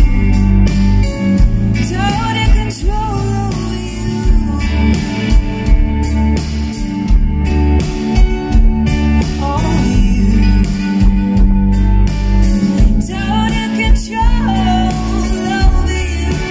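Live band playing a rock song: a woman sings lead in phrases over electric guitar, keyboard and drums.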